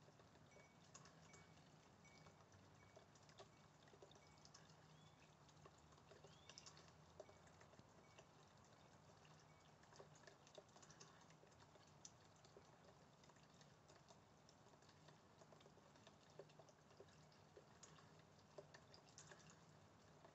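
Near silence: faint background hiss with small scattered ticks.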